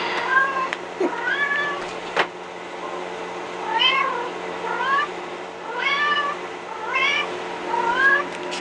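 Recorded kitten meows played through a phone speaker: a high mewing call repeated about once a second, each call much like the last, over a steady low hum, with a few light knocks in the first couple of seconds.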